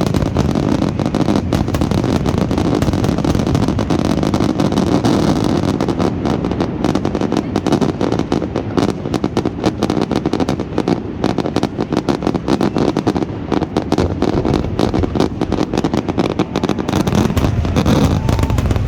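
A fireworks display's finale barrage: dense, overlapping bangs and crackles in quick succession over a continuous deep rumble.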